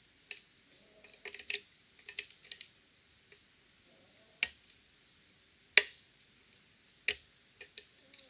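Small metallic clicks and taps of a lever-lock pick and tension tool working the levers inside a Fichet five-lever cabinet lock. The clicks are irregular, with a quick flurry early on and two sharper, louder clicks about six and seven seconds in.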